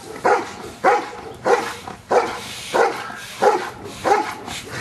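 Giant Schnauzer barking repeatedly at an even pace, about eight barks in a row, roughly three every two seconds.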